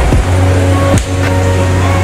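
Background music with held chords over a heavy, steady bass, the chords changing about once a second.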